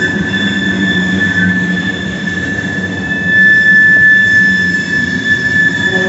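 Loaded freight cars (covered hoppers and tank cars) rolling past on steel wheels with a dense rumble, over a steady high-pitched squeal from the wheels that swells about three seconds in.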